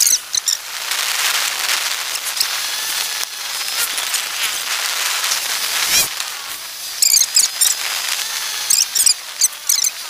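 Steady wind and road hiss while riding a Honda motor scooter, with short high-pitched chirps scattered through, clustered near the end. A single thump comes about six seconds in.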